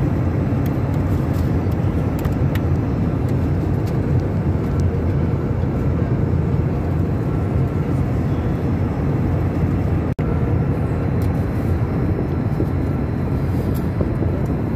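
Steady low roar of an airliner cabin in flight, the engine and airflow noise heard from a passenger seat, with a few faint clicks over it. The sound drops out for an instant about ten seconds in.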